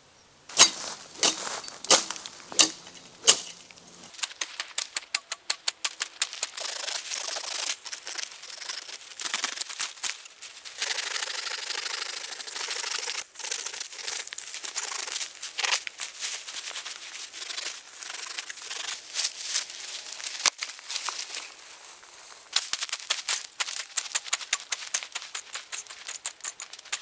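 Dry brush and leaf litter being cleared: a few loud separate snaps of breaking stems in the first few seconds, then a dense run of crackling and crunching through dry leaves and undergrowth.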